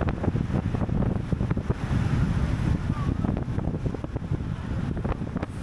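Wind buffeting the microphone of a camera riding along with a racing bicycle at speed: a steady, gusty low rumble.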